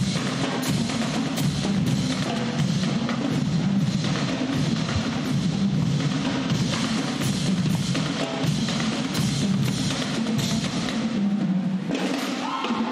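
Drum-driven music with a steady beat.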